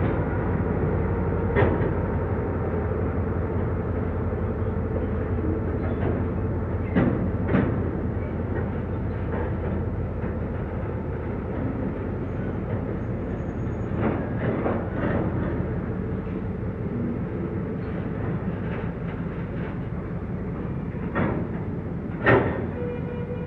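Freight train of container-laden stake flatcars rolling past: a continuous rumble of steel wheels on the rails, broken by occasional sharp clanks from the wagons and rail joints, easing slightly as it goes.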